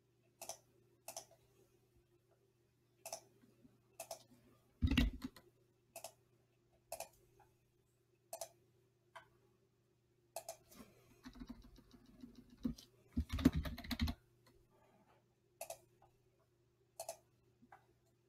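Single computer mouse clicks every second or so, with a heavier knock about five seconds in. A short burst of rapid keyboard typing comes about two thirds of the way through. A faint steady hum runs underneath.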